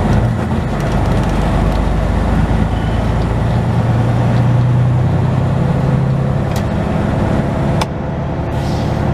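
Semi truck's diesel engine running, heard from inside the cab as the truck rolls slowly along; its low hum grows stronger about three seconds in and eases back at about six and a half seconds. A single sharp click near the end.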